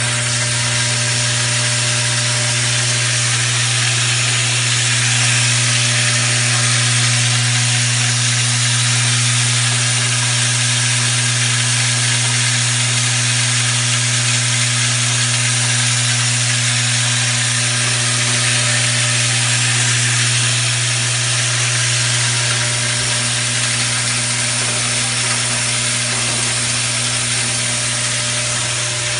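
Vibratory bowl feeder running steadily: a constant low electromagnetic hum with a dense, even rattling hiss of metal washers shaking along its spiral track.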